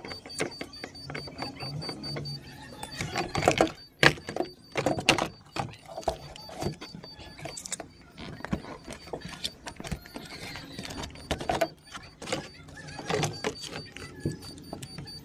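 Irregular plastic clicks, knocks and scrapes of hand work on a car's interior door trim panel: a screwdriver prying in the armrest and the power-window switch's wiring connector being worked loose. The loudest knocks come a few seconds in.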